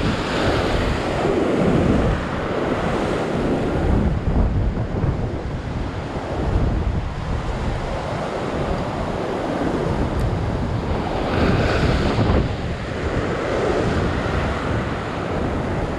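Ocean surf washing and breaking against a rock ledge, with wind buffeting the microphone. The wash swells louder at the start and again around eleven to twelve seconds in.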